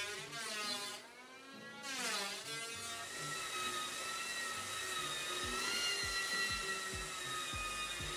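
Electric hand planer cutting along a wooden chine strip: its motor whine dips in pitch under load and recovers, stops briefly about a second in, then runs steady at a high whine.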